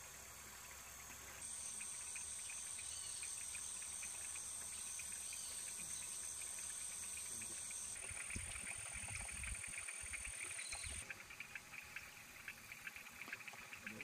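Insects calling: a steady high-pitched buzz starts a second or so in and cuts off about three-quarters through. Fast-pulsing chirping joins it past the middle and runs on after the buzz stops, with a low rumble for a few seconds in between.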